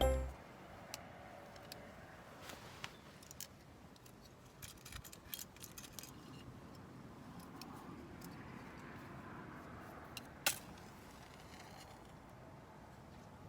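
Faint scattered clicks and light handling noises, with one sharper click about ten and a half seconds in; the tail of a music track cuts off right at the start.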